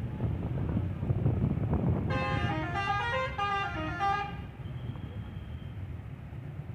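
A bus's 'telolet' musical horn plays a quick tune of stepped notes for about two seconds, starting about two seconds in, over a low rumble of bus engines and traffic.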